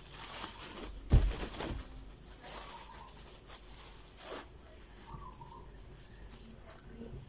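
Plastic bag rustling and crinkling as it is handled and its neck gathered and twisted closed, with a soft thump about a second in.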